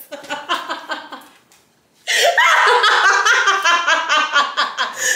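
Women laughing hard in quick repeated bursts, dying down about a second in to a brief hush, then breaking out again loudly about two seconds in.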